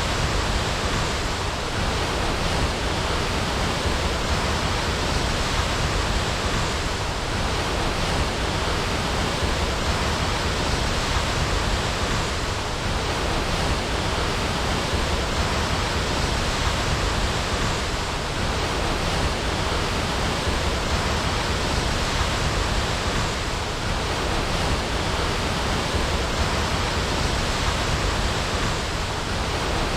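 A waterfall: water falling and rushing steadily, a constant even noise with no change.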